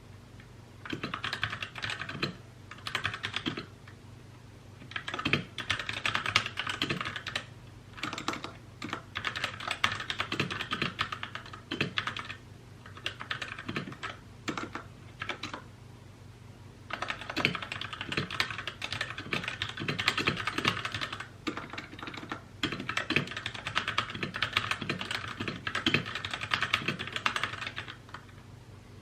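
Mechanical keyboard being typed on in bursts of rapid key clicks, with short pauses between them.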